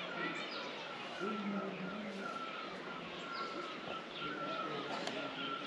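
Birds calling outdoors: short calls repeating about every half second, with small higher chirps, over a steady background hiss.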